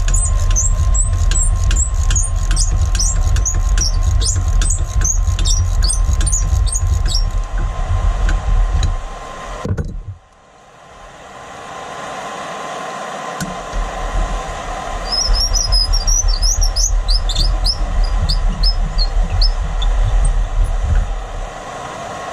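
A seized, corroded bell bolt on a Leslie RS3L air horn being backed out with a wrench, giving a run of short high squeaks for the first several seconds and a few more later. Under them is a steady low rumble that drops out sharply about halfway through.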